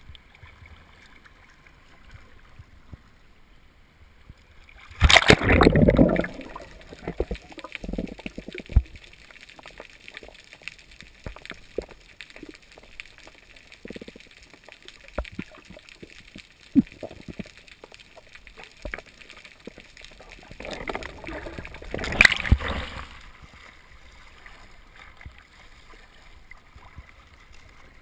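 Water splashing and sloshing around a kayak during an Eskimo roll: a loud splash about five seconds in and another about twenty-two seconds in, with gurgling water and small knocks between.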